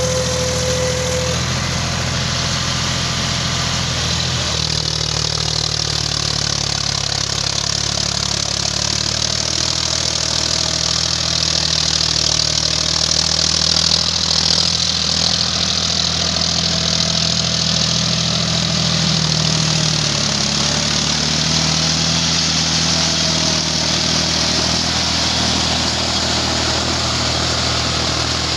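John Deere 5050D tractor's three-cylinder diesel engine running steadily under load while pulling a rotavator through wet paddy soil, with a steady hiss over it. It grows a little louder around the middle as the tractor passes close.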